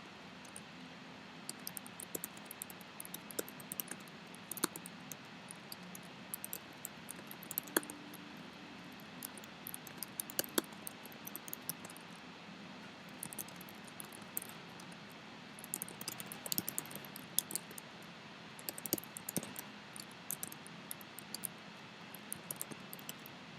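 Typing on a computer keyboard: irregular runs of key clicks with short pauses between them, over a faint steady hiss.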